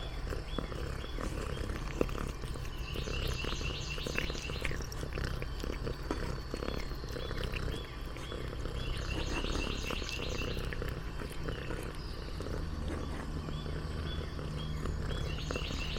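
Domestic cat eating a snack close to the microphone: short crunching and smacking clicks over a low purr-like rumble. Quick trains of high chirping notes sound in the background three times, about three seconds in, around nine seconds, and near the end.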